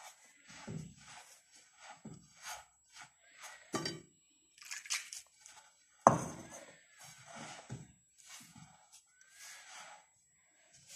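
Hands rubbing and tossing damp coarse yellow semolina in a glazed clay dish to work water into the grain: soft, gritty scratching strokes at an uneven pace, with a sharper, louder stroke about six seconds in.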